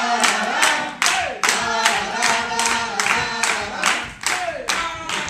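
A group clapping in time, about three claps a second, with voices singing along over the clapping.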